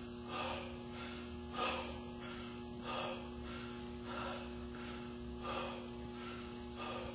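A weightlifter breathing hard between reps of a high-rep barbell squat set, standing with the loaded bar on his back: six deep, forceful breaths about a second and a quarter apart, over a steady electrical hum.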